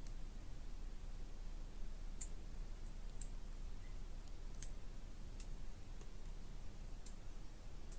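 Summer woodland ambience heard from inside a tent: a low steady rumble with sparse, sharp high-pitched ticks and clicks at irregular intervals, about eight of them.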